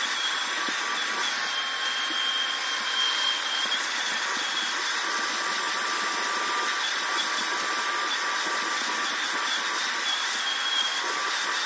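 Vacuum cleaner with a hose and nozzle running steadily with a high whine as the nozzle is pushed over carpeted car floor mats.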